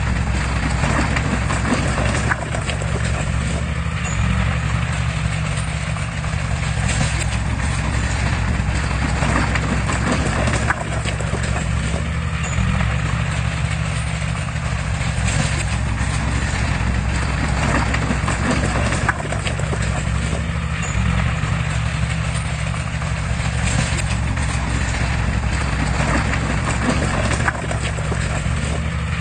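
Heavy diesel earthmoving machinery running steadily under load, with a continuous low engine drone and repeated clattering clanks over it.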